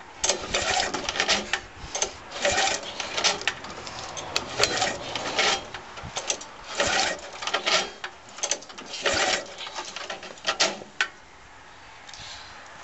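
Briggs & Stratton 3.5 hp Classic engine on a lawnmower being pull-started again and again: the recoil starter turns the engine over in a series of short bursts of noise, roughly one a second, without it firing. The engine is not starting. The pulls stop about eleven seconds in.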